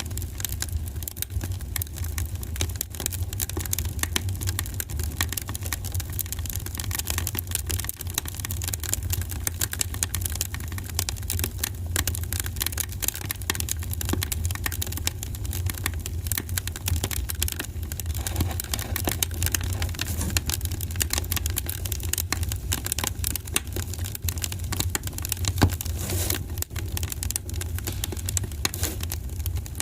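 Wood fire burning in a fireplace: a steady low rumble under constant irregular crackles and pops, with one louder pop about 26 seconds in.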